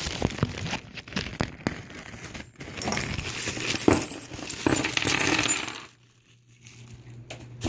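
Loose small metal nitro engine parts clattering and clinking as a pile of them is dumped out onto a surface. The clatter dies away about six seconds in, with a last couple of clinks near the end.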